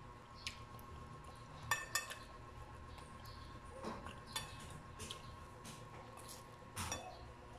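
Metal spoon clinking against a ceramic plate as food is laid onto it: a few scattered sharp clinks, the loudest two close together about two seconds in, over a faint steady hum.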